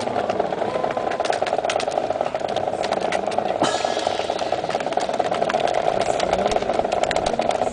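Sharp clacks of drill rifles being slapped, caught and handled by a rifle drill team, many in a quick irregular series as the movement ripples down the line, with a louder one about three and a half seconds in. They sound over a steady droning hum.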